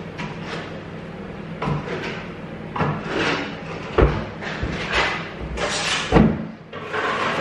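Steel plastering trowel scraping and swishing across wet plaster in a series of short strokes, with a couple of duller knocks as the trowel works the hawk and wall.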